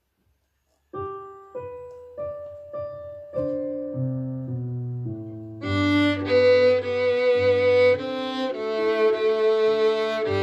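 A piano accompaniment starts about a second in with a few struck notes that each die away. About halfway through, a violin comes in over it, playing the bowed melody along with the piano.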